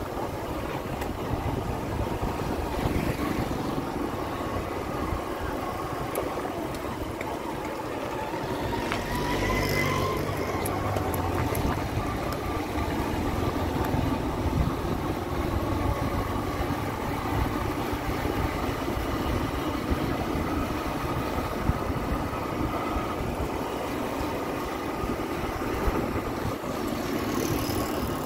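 Steady engine and road noise heard from a moving vehicle in street traffic, with a short rising whine about nine seconds in.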